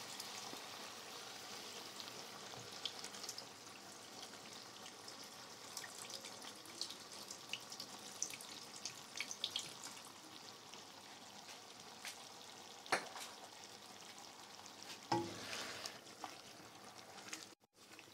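Chicken liver masala sizzling in hot oil in a wok, with scattered crackles, as water is poured in. Two louder knocks come near the end, then the sound cuts off.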